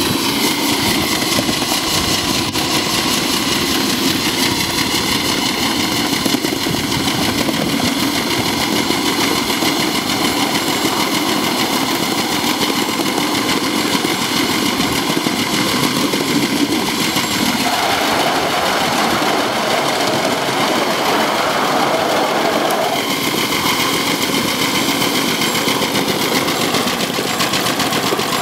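Live steam miniature locomotive, a model of ET&WNC #12, running steadily along the track: a fast, even exhaust beat mixed with wheel noise on the rails. A mid-pitched tone rises over it for about five seconds past the middle.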